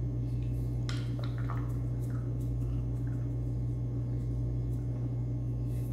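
Hands rubbing garlic powder into a whole raw chicken: quiet squishing and handling, with a couple of light taps about a second in, over a steady low hum.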